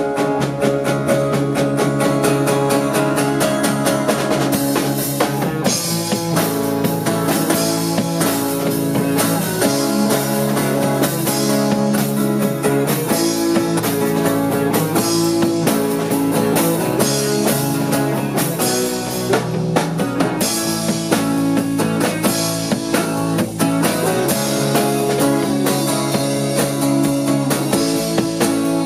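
Rock band playing live, without vocals: drum kit keeping a steady beat under bass guitar and strummed electric and acoustic guitars, the chords changing every few seconds.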